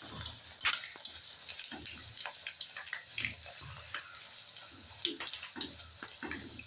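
Hot oil sizzling and crackling irregularly around a puri deep-frying in a kadai as it is pressed down with a spoon to make it puff up.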